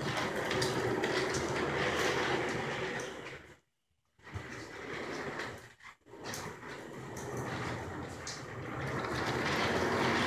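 Office-chair casters rolling on a concrete floor as the rig is pushed around, a steady rumbling, rushing noise that swells and fades. The sound cuts out briefly about four seconds in and dips again around six seconds.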